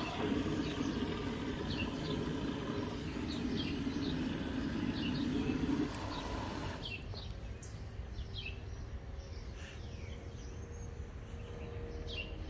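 Birds chirping in short calls over a steady low hum that stops about six seconds in.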